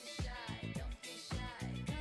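Upbeat funk-style dance music with a steady beat.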